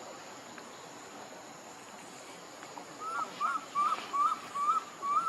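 An animal giving a run of six short, high calls in quick succession, each a brief rise and fall in pitch, starting about three seconds in.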